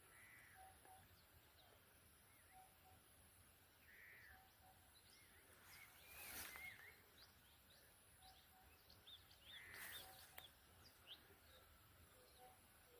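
Faint birdsong: a short two-note call repeated every second or so, with scattered higher chirps and whistles. Two brief rushes of noise come about six and ten seconds in.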